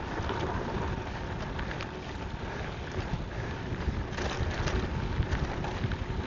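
Wind buffeting the microphone of a camera on a moving bicycle, with a low rumble and scattered light clicks and rattles from the bike rolling over a rough gravel trail.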